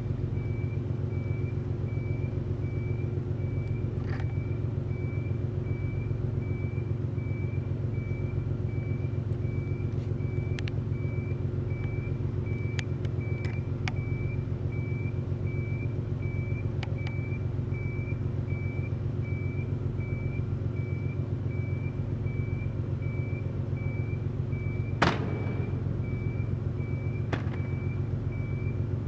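Steady low engine rumble with a constant hum, overlaid by a regular high beep repeating somewhat under two times a second. There are a few faint clicks and one sharper knock about 25 seconds in.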